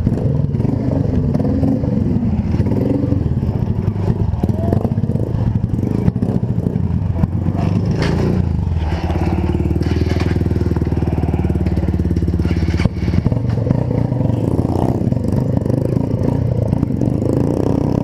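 Motorcycle engine running as the bike rides along a street, heard from the rider's own seat, its note rising and falling and holding steady for a few seconds midway.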